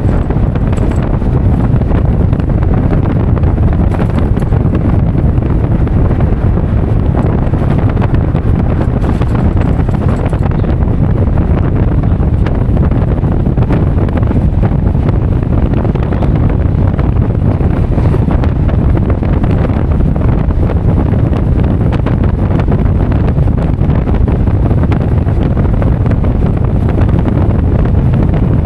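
Heavy wind buffeting the microphone: a loud, steady low rumble that doesn't let up.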